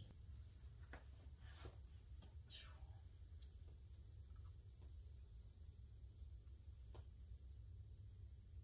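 Steady high-pitched insect trill, like a cricket chorus, with a few faint clicks and rustles.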